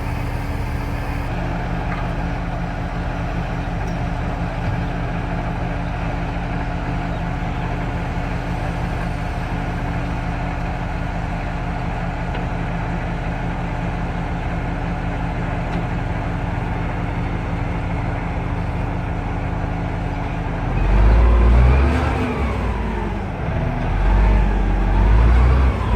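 Heavy wheel loader's diesel engine running steadily, then revving up and down a few times near the end.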